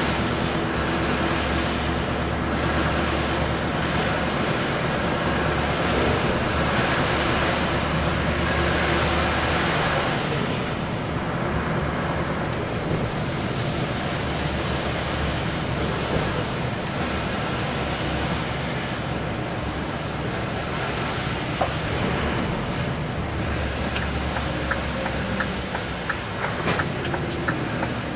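A vehicle driving on a wet road, heard from inside the cab: a steady engine hum under a constant hiss of tyres on wet tarmac, with a few light clicks near the end.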